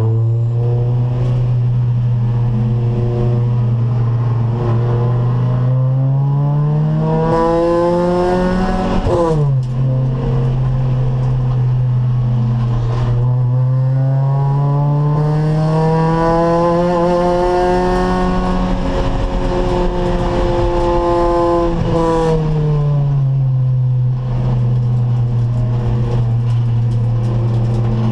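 Acura Integra race car's four-cylinder engine at racing revs: the pitch climbs for about nine seconds, drops sharply at an upshift, climbs again and holds, then falls away about 22 seconds in as the car slows, and starts to rise again near the end.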